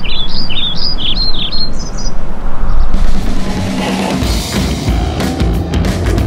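A bird sings a quick run of chirps over a low hum for about the first two seconds; about three seconds in, music swells up together with a rush of noise, with sharp hits toward the end.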